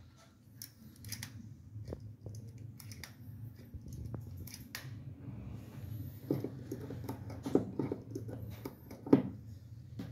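Stainless steel push-down spinning whisk being worked by hand: the handle slides along the spiral shaft and the wire head spins, giving light metallic clicking and rattling. The rattling gets busier in the second half, with two louder clacks near the end.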